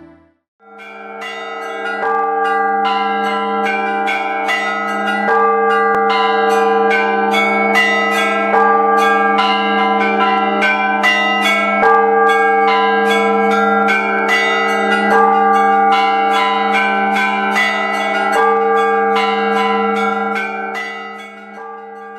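Church bells ringing in a full peal: many quick strikes of smaller bells over the steady hum of a large bell. It starts about half a second in and fades near the end.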